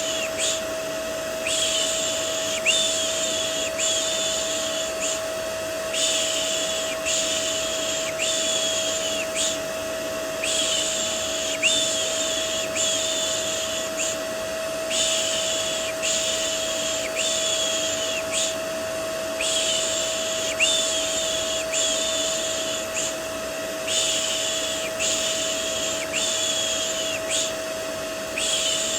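A vacuum cleaner runs steadily with a constant whine, and over it a hissing 'shh' shush repeats in runs of about four, with a short pause between runs. It is looped white noise for soothing a baby to sleep.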